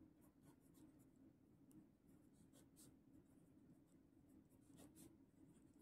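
Faint scratching of a pen writing on paper, a string of short soft strokes over a low steady hum.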